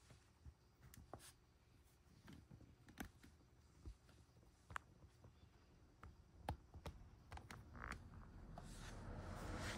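Near silence: quiet room tone with scattered faint clicks and light taps, and a soft hiss that rises near the end.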